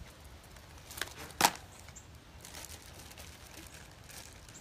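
Small objects being handled by a puppy: two brief knocks about half a second apart, a little over a second in, then faint rustling.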